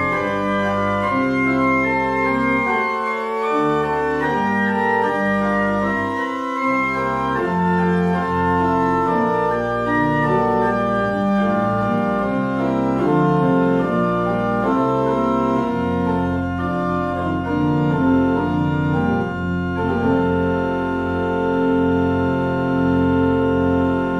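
Pipe organ played on a three-manual console: a slow piece of held chords over a bass line, the chords changing every second or so, with a fuller, steady bass in the second half.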